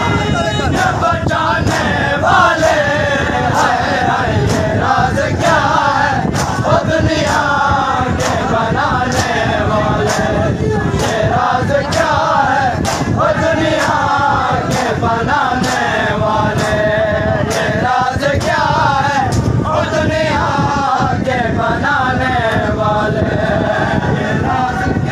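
A crowd of men chanting a Shia noha in unison, with a steady beat of sharp hand slaps just under two a second: matam, the chest-beating that keeps time with the lament.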